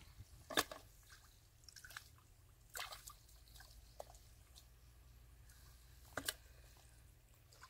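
Hands and bare feet working in wet mud and shallow muddy water, with a few short wet splats and drips: one about half a second in, one about three seconds in and a double one about six seconds in.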